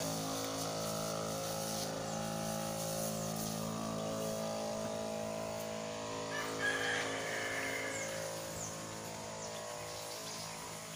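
Steady hum of a battery-powered backpack sprayer's pump running, growing fainter near the end. A rooster crows once, faintly, about seven seconds in, with birds chirping.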